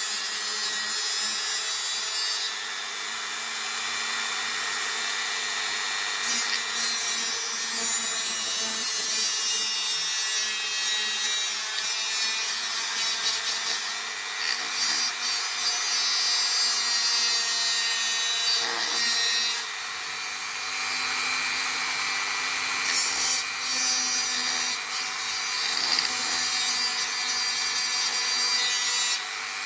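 A small electric power tool running steadily, with a rough rasping, scraping noise over its motor tone that grows louder and softer every few seconds as it works the material.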